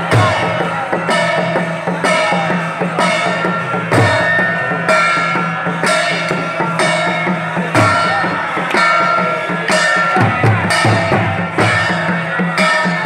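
Procession music: drums beaten in a steady rhythm, a strong stroke about once a second with lighter ones between, over a steady low drone and held higher tones.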